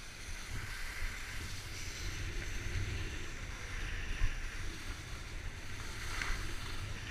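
Wind noise on a skier's camera microphone with the hiss and scrape of skis sliding on groomed snow, rising and falling through the turns; a short knock about four seconds in.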